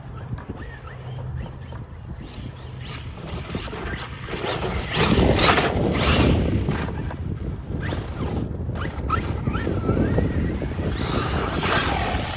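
Large-scale electric RC buggy (Losi DBXL-E 2.0) driving on dirt, its motor whining and tyres churning over loose ground. It gets louder from about four and a half seconds in, with squealing and scuffing.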